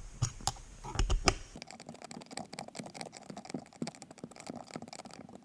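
Rapid clicking of a ratchet tightening a mirror mount bolt, preceded by a few separate knocks of the tool against the mount.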